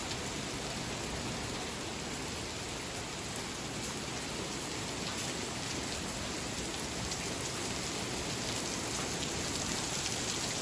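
Hail falling in an ice storm: a steady hiss with many small, sharp ticks of ice pellets striking surfaces.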